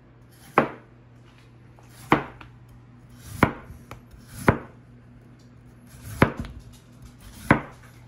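Kitchen knife slicing peeled raw potatoes into thin rounds, six separate cuts about a second or so apart, each ending in a sharp knock.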